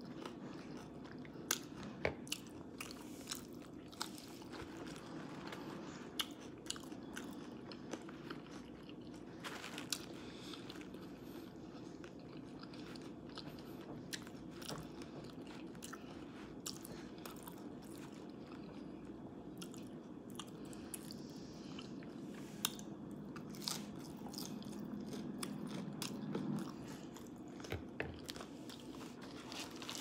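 Close-miked chewing of crunchy tacos: a run of many short, sharp crunches and mouth clicks at irregular intervals.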